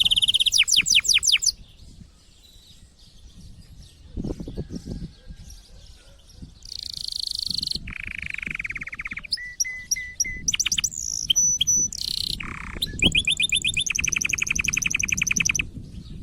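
Male domestic canary singing in breeding condition: a string of phrases of rapid trills, buzzy rolls and high whistled notes. There is a quieter pause of a few seconds early on, then a long fast trill near the end.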